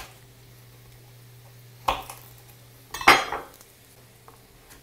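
Kitchen knife knocking and clattering on a wooden cutting board as garlic cloves are peeled: a short knock about two seconds in, then a louder clatter about a second later.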